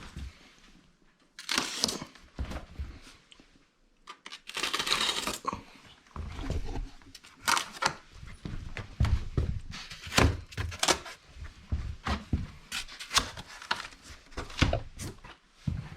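Cardboard and styrofoam TV packaging being handled: two longer tearing or scraping rasps early on, then a run of sharp knocks and thuds.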